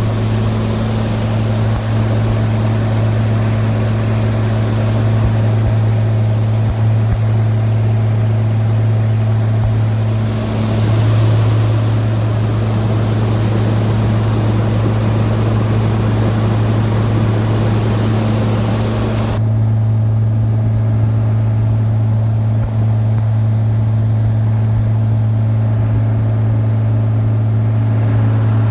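Farm vehicle engine running steadily with a strong low hum. About two-thirds of the way through, the hiss above it drops away suddenly while the engine note carries on unchanged.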